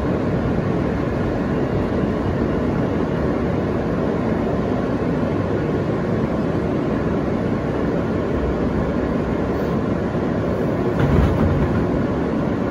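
R160A subway car running along the track, heard from inside the car: a steady rumble of wheels on rail, with a brief louder low thump about eleven seconds in.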